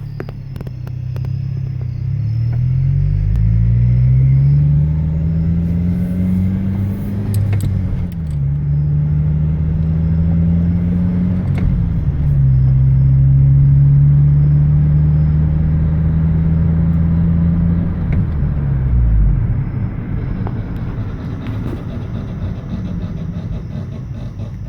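2007 Honda Civic being driven, heard from inside: the engine's pitch climbs twice with a drop between, like upshifts, then holds steady at cruise. About 19 seconds in the engine note falls away as the car slows, leaving a quieter road rumble.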